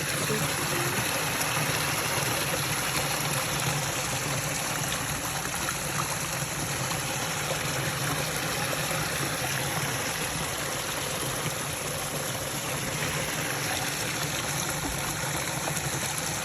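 Water running in a steady, unbroken stream.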